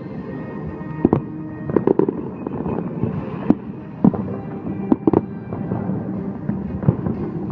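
Fireworks going off: about eight sharp bangs at irregular intervals, some in quick pairs, with music playing underneath.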